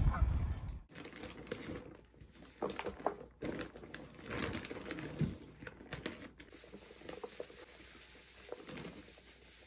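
Shredded paper bedding rustling and crinkling as handfuls are handled and dropped into a plastic rabbit litter box, in irregular bursts. It opens with a second of music that cuts off abruptly.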